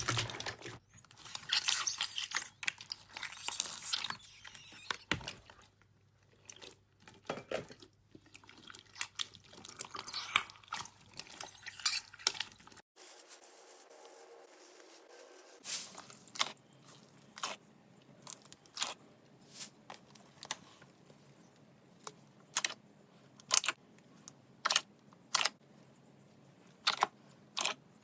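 Crunchy slime being squeezed and pressed close to the microphone: dense crackling at first, thinning to scattered crisp pops. After a short break about halfway through, sharp single crunchy snaps come roughly once a second.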